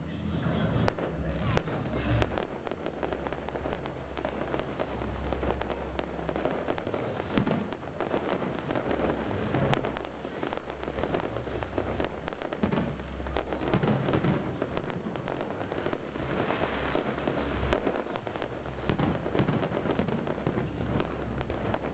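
Fireworks display: a continuous, dense crackle of many small cracks and pops, with heavier booms from the shells mixed in.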